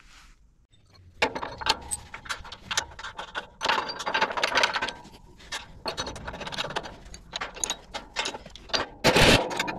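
Irregular small metal clicks and scrapes of a nut, washer and bolt being worked by hand on a plow's skid-plate bracket, with a louder burst of clatter near the end.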